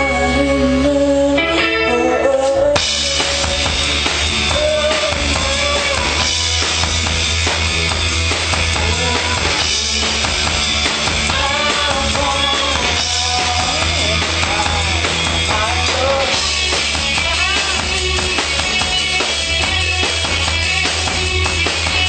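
A rock band playing live: a drum kit with bass drum and cymbals, bass and guitar. The drums and cymbals come in about three seconds in, over pitched parts that are already playing.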